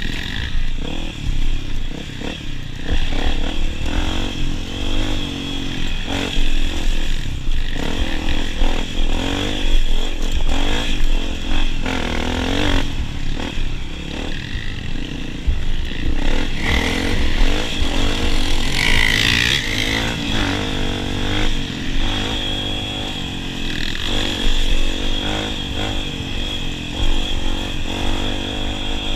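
Honda CRF250F dirt bike's single-cylinder four-stroke engine being ridden hard off-road, revs rising and falling over and over with the throttle, with clattering from the bike over rough ground.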